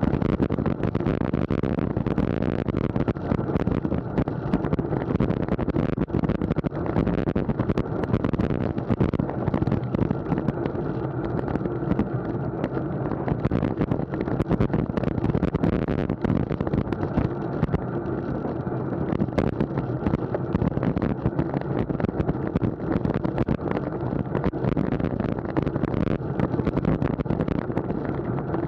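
Wind rushing and buffeting over an action camera's microphone on a moving road bike, with steady road noise and frequent small knocks and rattles.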